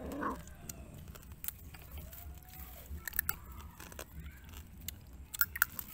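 Chewing and crunching on cooked crab shells, with scattered sharp crunches, loudest about three seconds in and again near the end. A short vocal sound comes right at the start.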